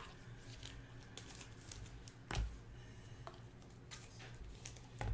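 Faint handling of trading cards and their packaging on a table: small scattered clicks and rustles, with a louder knock about two seconds in and another near the end.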